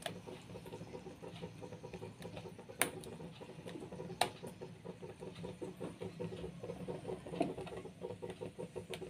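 Fingers stirring and dipping a raw banana slice in thick gram-flour batter in a steel bowl: soft, wet squelching that keeps up throughout, with two sharp clicks against the bowl about three and four seconds in.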